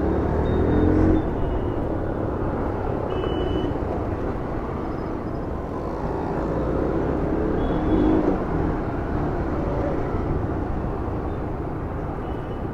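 Motorcycle riding in traffic: steady engine and wind noise, with the engine pitch rising twice, about a second in and again about eight seconds in.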